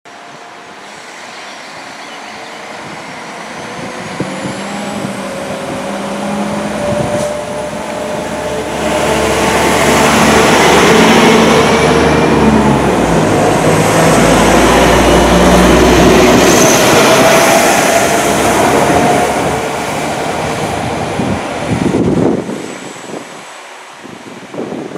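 London Midland Class 172 Turbostar diesel multiple unit passing along the platform, its underfloor diesel engines and transmission giving a droning note that rises in pitch as the train gathers speed, over the rumble of the wheels. The sound swells for about ten seconds and holds loud, then cuts off a couple of seconds before the end, leaving wind on the microphone.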